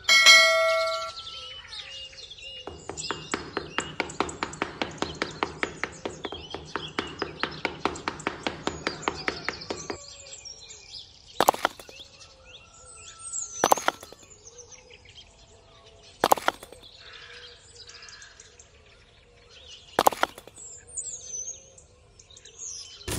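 Birds chirping in the background. A brief ringing tone at the start, then a rapid, even clatter of about six strokes a second lasting about seven seconds, followed by several separate sharp knocks.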